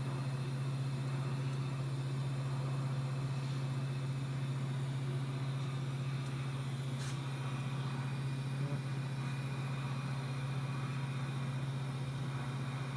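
Steady low mechanical hum with a faint hiss, and a single short click about seven seconds in.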